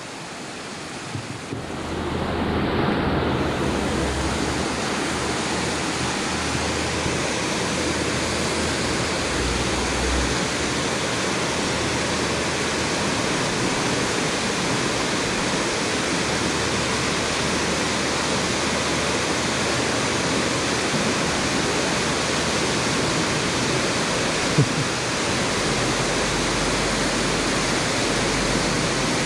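Shallow river water rushing over rocks and a small step of white water: a steady, loud rush that swells about two seconds in, with one short knock near the end.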